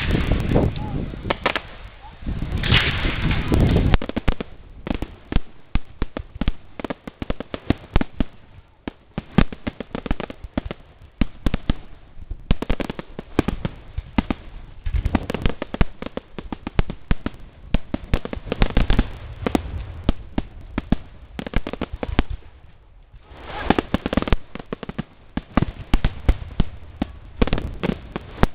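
Fireworks and firecrackers going off: rapid cracks and pops in dense clusters with short lulls, loudest in the first few seconds.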